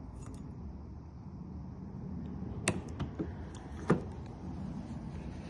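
A few sharp clicks, the clearest about two and a half seconds in and again about a second later, over a low steady hum.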